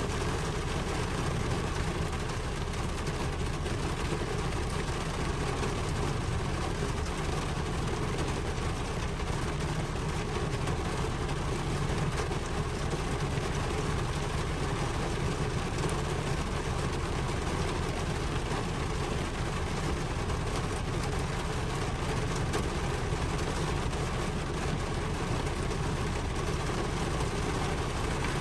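Steady, continuous rain noise with a deep low rumble underneath, even and unbroken throughout.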